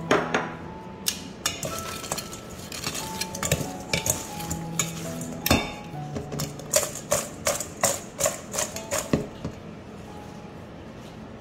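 Metal utensil clinking and scraping against a dish while tossing air-fried chicken wings with salt, pepper, fried scallion and ginger. A quick irregular run of clinks, coming fastest in the later part and stopping about nine seconds in, over soft background music.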